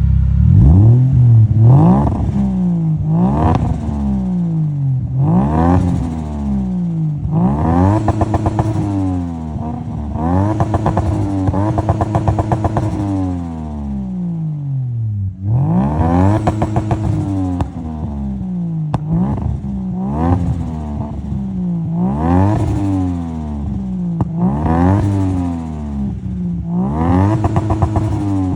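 Turbocharged Lexus IS200 1G-FE straight-six through a straight-pipe exhaust, revved about a dozen times in a row, the pitch climbing and falling each time. Each lift-off brings rapid turbo flutter and crackle, from a GT2871 turbo with no blow-off valve.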